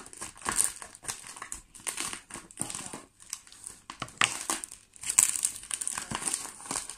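Crumpled packing paper rustling and crinkling as a parcel is unpacked by hand, in irregular crackles with a louder stretch about five seconds in.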